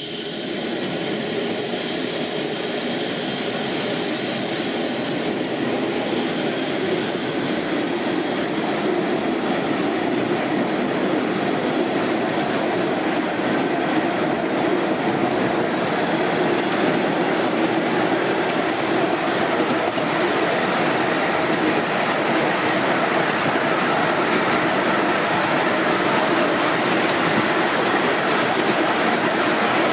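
Miniature steam railway train running along a raised track, heard from a passenger truck behind the locomotive: the steady noise of small wheels rolling on the rails, growing a little louder over the first few seconds.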